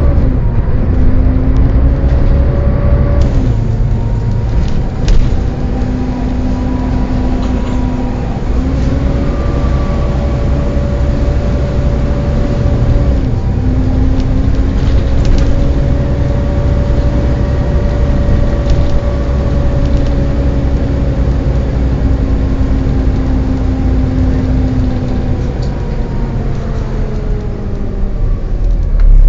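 Volvo B7TL double-decker bus running with a steady low rumble, over which a whine swells and fades, bending slightly in pitch, every few seconds: the hoover-like noise of its cooling fan.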